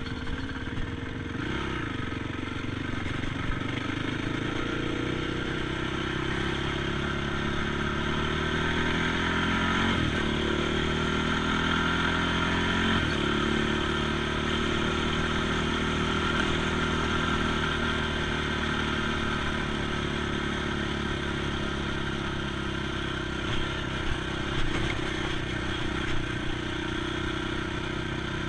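ATV engine running steadily under way, its pitch shifting about ten seconds in and dropping suddenly a few seconds later as with a gear change. A few short knocks come near the end.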